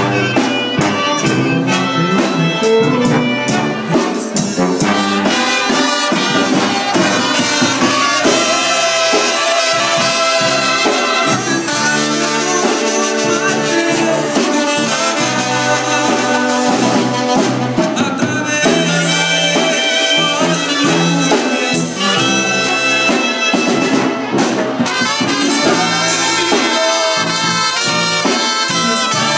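Live banda wind band playing an instrumental passage with no singing: clarinets, trumpets and trombones sounding together.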